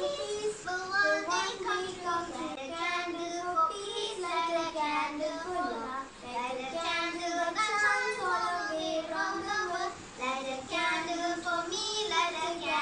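Two girls singing a song together, holding and gliding between sung notes, with short breaks between phrases about six and ten seconds in.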